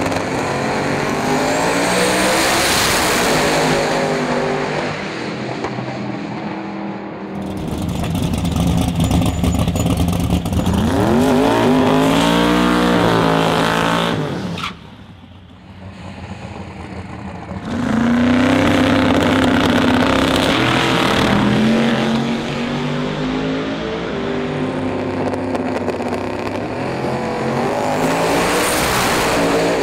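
Twin-turbocharged 622ci Chevrolet big-block V8 of a 1969 Camaro Outlaw 10.5 drag car, running hard and revving repeatedly through a burnout and launches. The engine note climbs in several long sweeps and cuts off suddenly about halfway through before picking up again.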